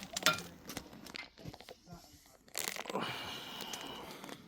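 Crinkling and rustling handling noise in two bursts, a short one about a quarter second in and a longer one from about two and a half seconds in.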